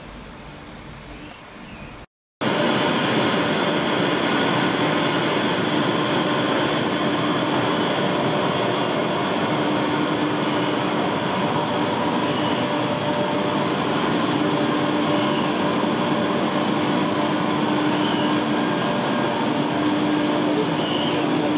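Gallus R 200 B label printing press running: a steady, loud mechanical whir with a constant hum, following a short break in the sound about two seconds in.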